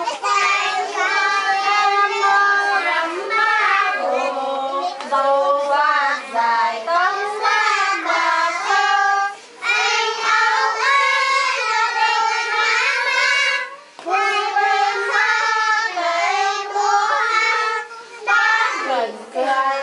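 A group of young children singing a song together in phrases, with a couple of short breaks between phrases.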